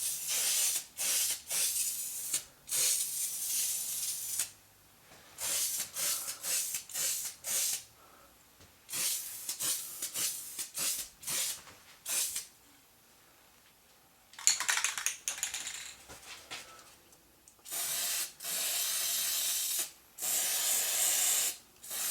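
Aerosol spray can spraying in many short hissing bursts, with a few longer sprays near the end, as in rattle-can painting.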